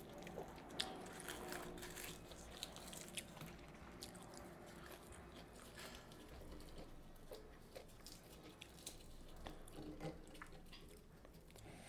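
A person chewing and biting fried methi puri with mutton curry close to the microphone: irregular small crunches and wet mouth clicks.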